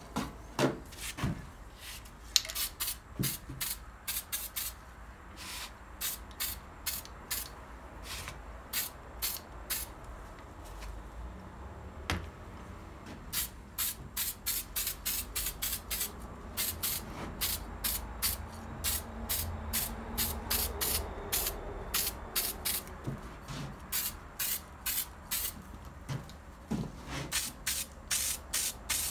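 Aerosol spray can of red oxide primer sprayed in many short bursts, each a brief hiss, coming in quick runs of about two to three a second. These are light passes of primer going onto a bead-blasted cast metal part.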